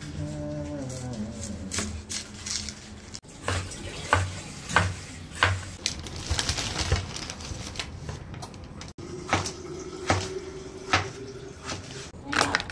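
Cleaver chopping on a wooden cutting board: a series of sharp, irregular knocks as the blade slices through onion and tomato and strikes the board.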